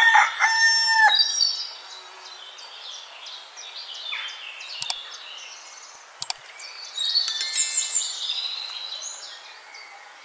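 A rooster crowing, its call ending about a second in, followed by small birds chirping and calling, busiest about seven to eight seconds in, with two short clicks in between.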